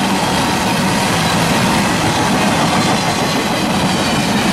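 Loaded double-stack intermodal well cars of a freight train rolling past steadily, a continuous rumble and rattle of steel wheels on the rails, in heavy rain.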